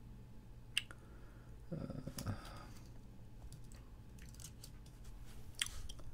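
A few sharp, scattered clicks of a computer keyboard and mouse, the loudest about a second in and near the end, with a brief low rustle about two seconds in.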